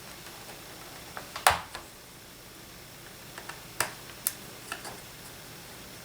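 Scattered light clicks and taps of a screwdriver and small parts against a laptop's plastic case during disassembly, the sharpest about one and a half seconds in and a few more around four seconds.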